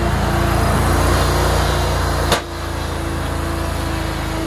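SCAG V-Ride II stand-on mower's engine running steadily while it pushes a BOSS V-plow, with a hiss of noise over the engine. A single sharp clack comes about halfway through, after which the sound drops a little and the hiss thins out.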